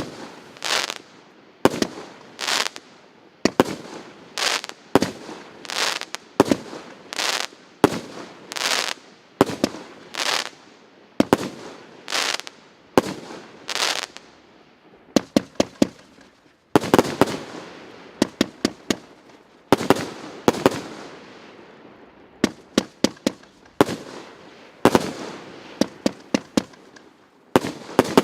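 Consumer firework battery (PC865 'Wedding Salute' cake) firing shot after shot, about one a second, each a sharp bang with a fading hiss; about halfway through it breaks into quick clusters of sharp cracks.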